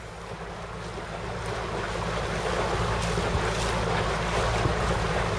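Wind buffeting the microphone and water rushing past a hull, growing louder, over the steady low drone of a boat's motor.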